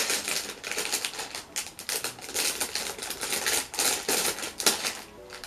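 Thin clear plastic Lego parts bag crinkling and crackling as it is pulled open and handled, the small plastic bricks inside rattling, in a quick irregular run of sharp clicks that dies away near the end.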